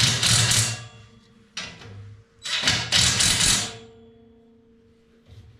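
A power tool's motor run in two short bursts of about a second each, loud and hissing; after the second burst a steady hum fades away as the motor winds down.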